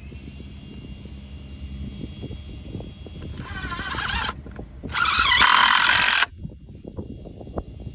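Power drill driving screws through scrap boards into a wooden post: two runs of about a second each, the second louder, with the motor's pitch wavering as the screw bites.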